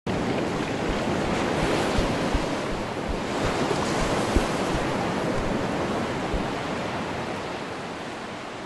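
Wind rushing over the GoPro's microphone: a steady rushing noise with a few short low bumps, slowly fading toward the end.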